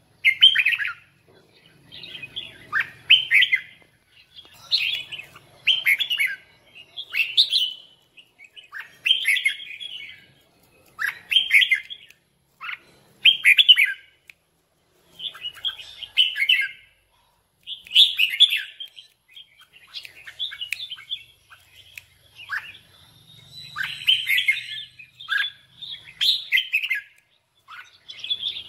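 Red-whiskered bulbul singing its competition song: short, clear warbled phrases, repeated every second or two with brief pauses between them.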